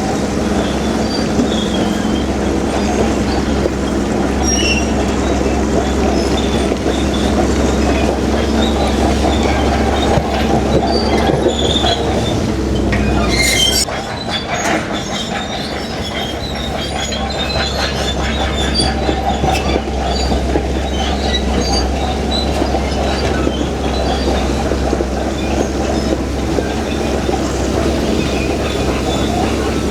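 Crawler bulldozer working under load: the diesel engine runs steadily while the steel tracks clank and squeal. About halfway through, a sharp screech comes and the engine note drops for a few seconds before building back up.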